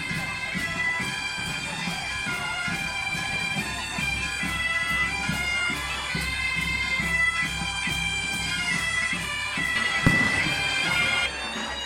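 Asturian bagpipe (gaita) playing a lively melody over its steady drone, with a drum beating underneath. One sharp bang stands out about ten seconds in.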